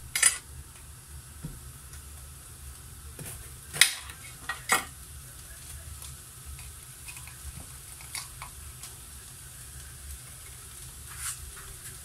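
Onions sizzling steadily in a frying pan with low-calorie cooking spray as they are stirred, with a few sharp clinks of a utensil against the pan; the loudest come about four and five seconds in.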